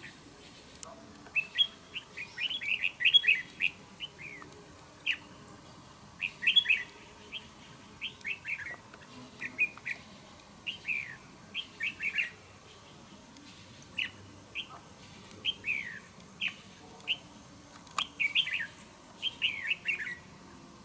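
Red-whiskered bulbuls singing: short, quick phrases of chirping whistled notes, some sliding down in pitch, repeated every second or two.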